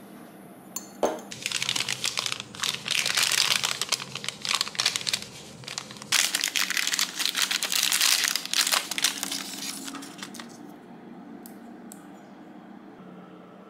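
A brown kraft-paper bag crinkling and rustling as it is handled and opened, in two long stretches, with a single knock about a second in.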